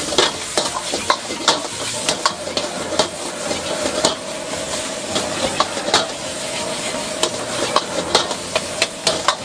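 Fried rice sizzling in a hot wok over a gas burner while a metal ladle scrapes and knocks against the wok, giving repeated sharp clacks over a steady hiss, with a faint steady hum underneath.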